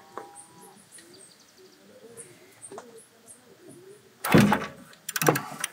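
Socket ratchet on two extensions clicking in short runs as it backs out a heat-shield bolt: a loud rasp of clicks a little after four seconds in, then a quicker string of sharp clicks about a second later.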